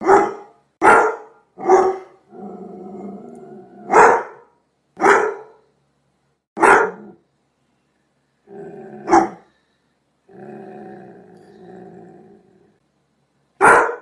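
A Doberman barking, eight single deep barks spaced irregularly, with low growling held for a second or two between several of them.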